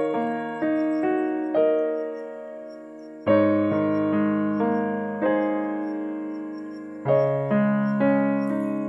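Background piano music: slow chords struck every half second to a second, each left to ring and fade, with a fuller, louder chord a little past three seconds in.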